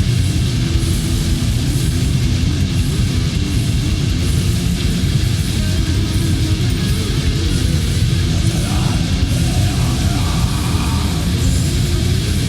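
War metal recording: distorted electric guitars and drums in a dense, unbroken wall of sound, loud throughout.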